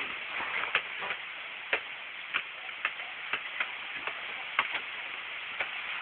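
Strong wind rushing through trees as a steady hiss, with sharp clicks at irregular intervals about every half second to a second.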